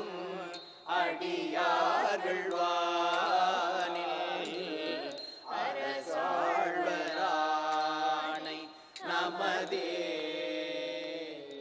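Melodic devotional chanting of a Tamil Shaiva hymn in Carnatic style. It is sung in long phrases, broken by short pauses twice, about five and a half and nine seconds in.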